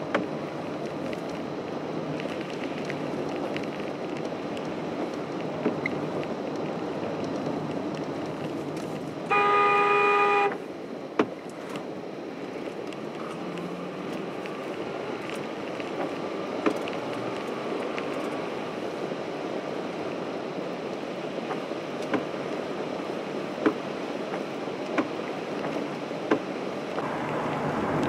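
Steady road and tyre noise inside a car driving on a wet road, with one car horn blast of about a second, a single steady note, about a third of the way in. A few sharp clicks come later.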